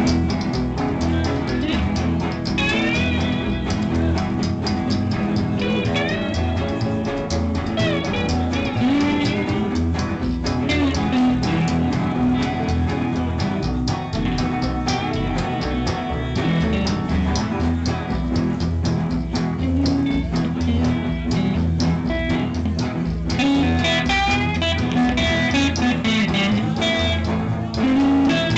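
Band playing blues-rock, led by electric guitar with bending notes.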